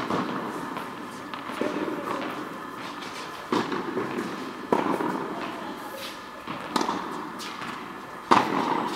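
Tennis ball being struck by rackets in a rally: sharp pops about every one to two seconds, each with a short echo.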